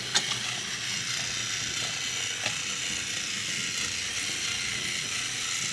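Battery-powered toy train engine's small electric motor and gearbox whirring steadily as it tows a line of loaded cars around a wooden track, with a few light clicks.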